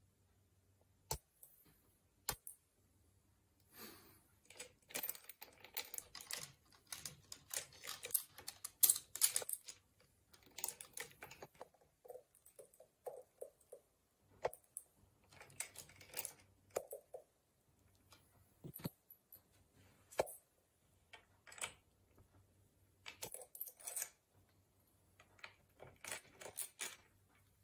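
Kids' bicycle roller chain and crank parts clinking and rattling as the chain is handled and fitted over the chainring, with scattered sharp metallic clicks and short runs of quicker ticking.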